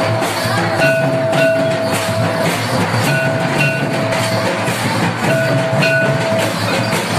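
Loud rhythmic music for a village dance: a held high note comes back about every two seconds over a dense, steady rhythm.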